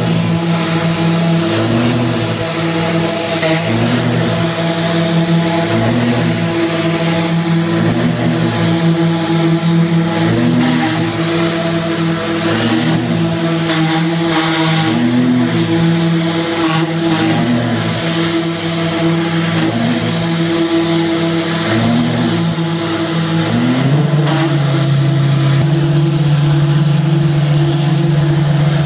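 Loud, steady mechanical drone of a running engine-driven show machine, with a regular pulse about every second and a quarter. About 24 seconds in it rises in pitch and settles into a louder, steadier run.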